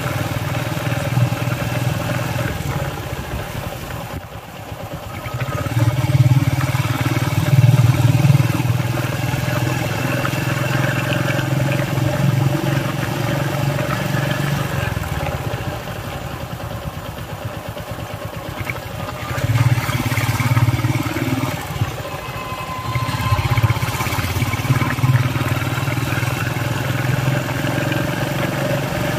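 Engine and road noise of a moving vehicle: a steady low drone that swells louder a few times as it drives.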